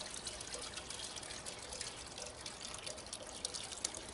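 Water poured from a watering can into a water smoker's water pan, splashing and trickling steadily.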